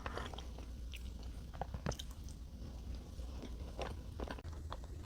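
Close-miked chewing of soft salted caramel chocolate cake: irregular wet mouth clicks and smacks, a few a second.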